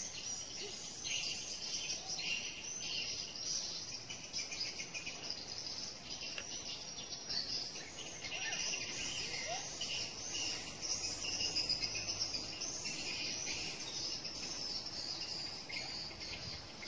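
A shrill insect chorus, high-pitched and pulsing unevenly, going on without a break.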